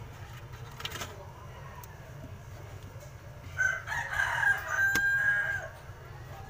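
A rooster crowing once, starting about three and a half seconds in and lasting about two seconds, ending on a long held note.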